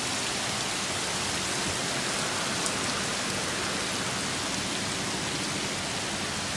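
Heavy rain pouring steadily, a dense even hiss of a monsoon downpour.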